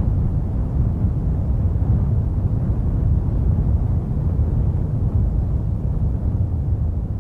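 Steady low rumbling noise with no pitch to it.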